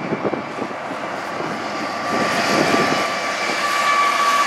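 Diesel freight locomotives passing close by under power: a loud, steady engine sound that grows louder, with a steady high whine coming in about halfway through and getting stronger.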